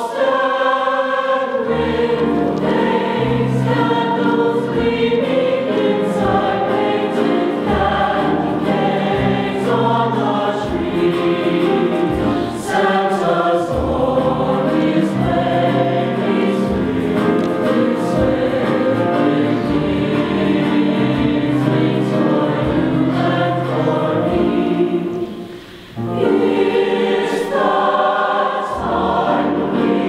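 Mixed-voice high school choir singing in harmony, several vocal parts sounding at once. The singing breaks off briefly near the end and then resumes.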